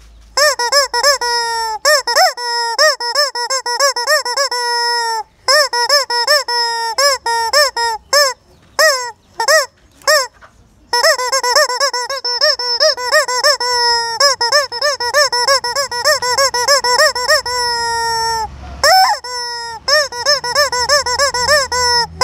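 Squeaky toy chicken being squeezed over and over: long runs of quick, rising-and-falling squeals on a steady high note, broken by a few short pauses.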